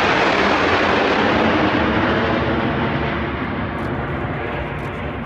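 Jet engine roar from a formation of four Northrop F-5E Tiger II fighters passing overhead. The roar is loudest at the start, then slowly fades and grows duller as the jets climb away.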